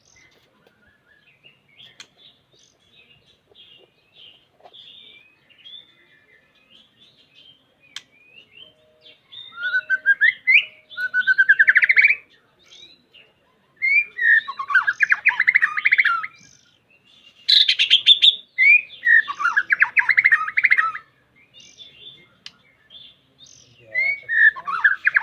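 White-rumped shama (murai batu) singing its challenge song to call out a rival. Soft, scattered chirps come first. From about nine seconds in, four loud bursts of fast trilling phrases follow, separated by short pauses, many opening with a sharp rising note.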